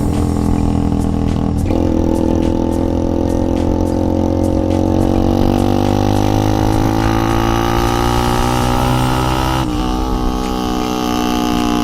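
Motorcycle engine running at a held, slowly rising speed, with a sudden change in pitch about two seconds in and again near the end.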